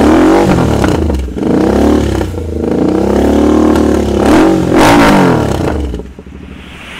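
Royal Enfield Continental GT 650 parallel-twin engine, breathing through aftermarket TEC headers, being revved repeatedly and loud. Its pitch rises and falls several times before dropping away near the end.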